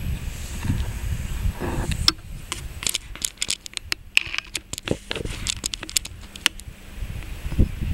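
Wind rumbling on the camera microphone for about the first two seconds, then scattered sharp clicks and crackles of the camera being handled.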